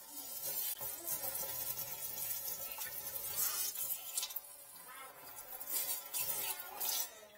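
A long metal rod scraping and knocking inside an open plastic toilet drain pipe, in a run of short, uneven scrapes.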